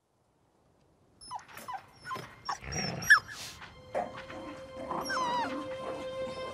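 Wolves whining and yipping in a string of short, high calls that bend up and down in pitch, starting about a second in after silence. A held music note enters about four seconds in.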